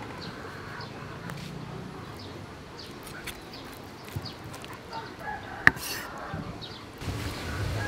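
Birds calling in the background with short, repeated chirps, and one sharp knock about six seconds in as a knife cuts through a fish ball and strikes the wooden chopping board.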